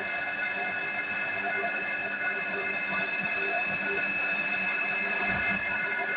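Small electric motor of a DIY mini tractor whining steadily, with several high, unchanging tones.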